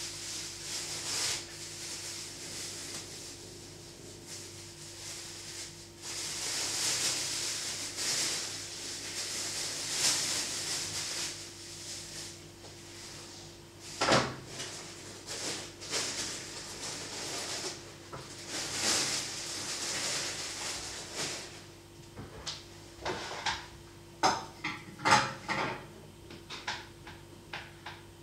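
Rubbing and handling noises with scattered clicks and knocks over a faint steady hum: a sharp knock about halfway through, and a quick run of clicks near the end.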